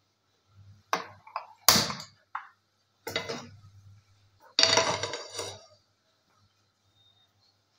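A hand-held spark gas lighter clicking at a gas stove burner, with a few sharp clicks and knocks in the first three seconds. About four and a half seconds in, a metal frying pan is set down on the burner grate with a clatter that rings briefly.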